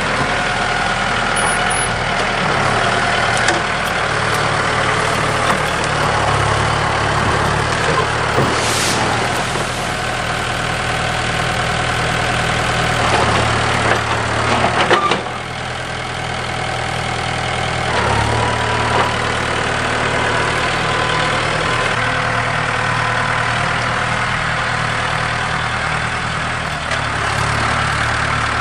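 Backhoe engine running steadily under changing load as it works, with a few sharp knocks along the way.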